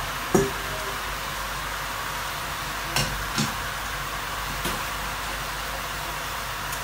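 Vegetables sizzling steadily in a wok on high heat, an even hiss, with a few faint clicks.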